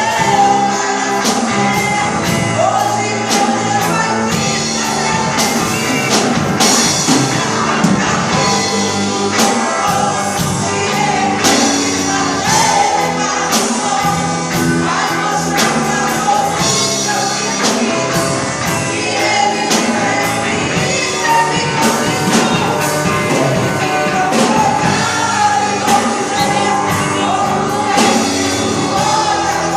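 Gospel worship song performed by a band and singers, with drums keeping a steady beat under the voices.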